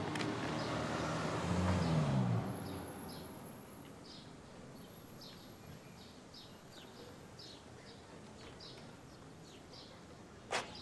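A vehicle engine goes by and fades away within the first two and a half seconds. Then small birds chirp, short high chirps about twice a second over quiet outdoor ambience, with one sharp knock near the end.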